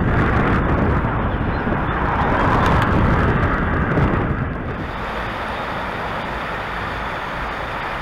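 Rushing wind noise buffeting the microphone, loud and wavering, easing to a steadier, quieter hiss about five seconds in.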